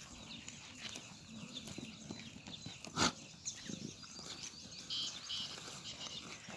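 Farmyard sounds with small birds chirping on and off, and one sharp knock about three seconds in.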